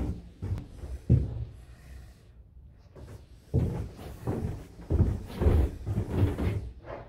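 Footsteps and knocks on the hollow hardwood floor of a small timber cabin: irregular low thuds, a few sharper, with a quieter pause a couple of seconds in.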